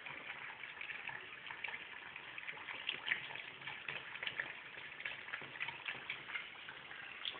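Water running from a tap and splashing steadily, with many small crackles and splashes.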